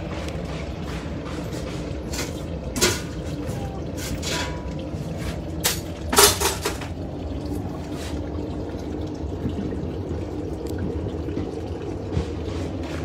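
Portable mini glass furnace running with a steady rushing hum. A few short knocks or clinks are heard over it, the loudest about six seconds in.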